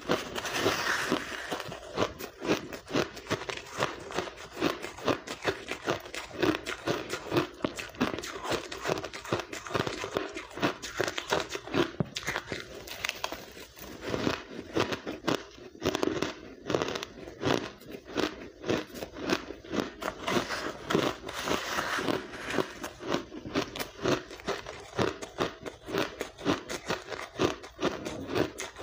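Close-up crunching and chewing of blender-crushed ice: a dense, irregular run of crisp crackling bites that goes on without a break.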